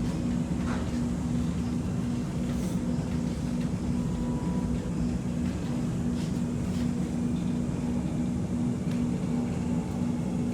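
Steady interior hum and rumble of an X'Trapolis 2.0 electric suburban train carriage, with one low tone held throughout.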